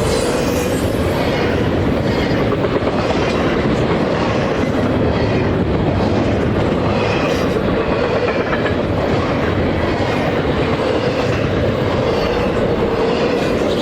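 Freight train cars rolling steadily past at track side, a continuous rumble of wheels on rail with a repeating click as wheels cross rail joints.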